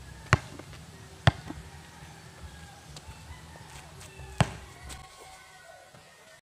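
Basketball bouncing on a concrete court: sharp single bounces about a third of a second in, just over a second in and about four and a half seconds in, the last as the ball is lobbed up for a dunk, with a few softer taps between. The sound cuts out abruptly near the end.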